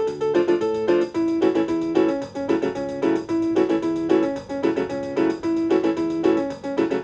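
Suzuki Omnichord OM-250m electronic instrument playing: a quick, repeating pattern of bright notes over held chord tones, like a keyboard.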